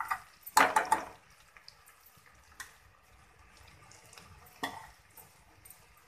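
A spoon stirring and scraping in a pressure cooker for about the first second, then crushed garlic frying in oil and butter: a faint sizzle with a few small pops.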